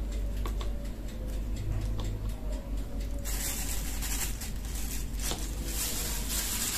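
A metal spoon scraping and clinking now and then in a glass bowl of thick minced garlic paste, with a small plastic bag rustling as it is filled. From about three seconds in, a steady high hiss joins.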